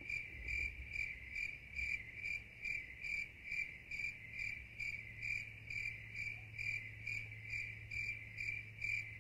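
High, evenly spaced chirping, about two chirps a second at one steady pitch, over a faint steady low hum.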